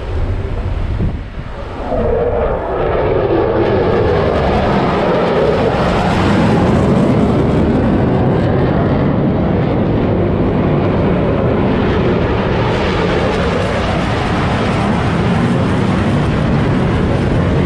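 F-16 Fighting Falcon fighter jets flying past, a loud jet roar. It swells in about two seconds in with a falling pitch sweep as they pass, then stays loud, over wind on the microphone.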